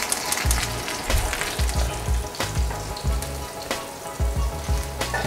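Dry-aged New York strip steak searing in olive oil in a very hot cast-iron skillet: a steady sizzle with scattered sharp crackles of spitting oil.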